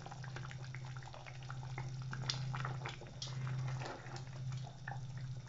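Thick tomato sauce simmering in a saucepan, with irregular small pops and bubbles as a wooden spoon stirs through it. A steady low hum runs underneath.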